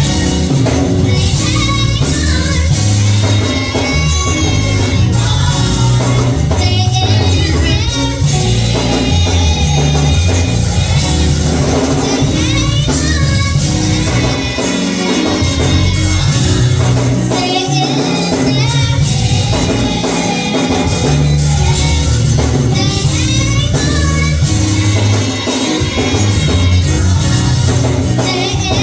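Gospel music with singing over a heavy bass line and a steady beat, with tambourine.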